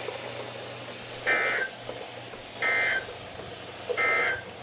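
NOAA Weather Radio EAS/SAME end-of-message data bursts: three short, shrill digital warbles about 1.3 seconds apart. They mark the end of the alert message.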